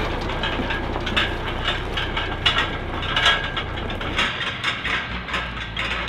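Empty Peterbilt logging semi pulling away over gravel, its diesel engine running under a steady stream of rattles and clanks from the unloaded trailer.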